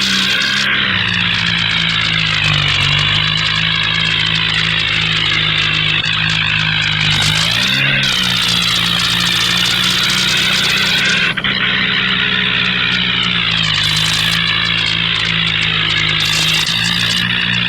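A vehicle engine running steadily, its pitch dipping and rising slightly a few times.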